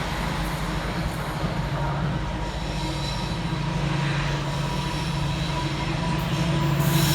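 Two coupled Class 325 electric mail multiple units passing through a station: a steady rumble of wheels on rail with a low running hum, growing louder near the end.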